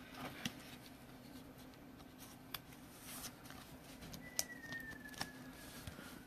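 Quiet handling of trading cards: scattered light clicks and rustles. About four seconds in, a faint high whistle slides slowly down in pitch for about two seconds.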